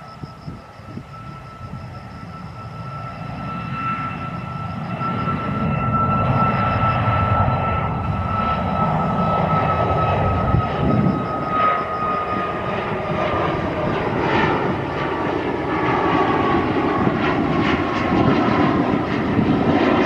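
Passenger airliner's engines running, growing louder over the first several seconds and then holding steady, with a high whine that slowly drops in pitch.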